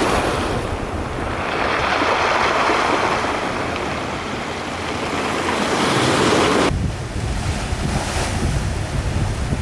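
Sea waves surging and washing, with wind buffeting the microphone. About two-thirds of the way through, the sound changes abruptly to a duller, lower wind rumble on the microphone.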